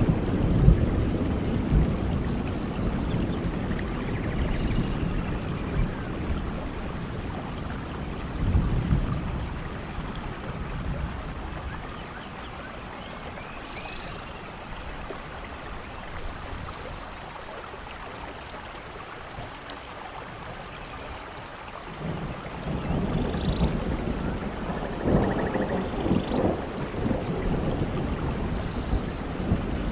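Steady rain with thunder rumbling low. The rumble swells near the start and again briefly about eight seconds in, eases off into a quieter stretch of rain, then builds again about twenty-two seconds in.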